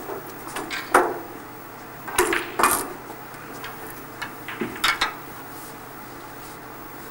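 A handful of sharp clicks and knocks from snooker balls and cue being handled at the table while the potted black is respotted. The loudest is about a second in, two more come a little after two seconds, and a couple more come near five seconds.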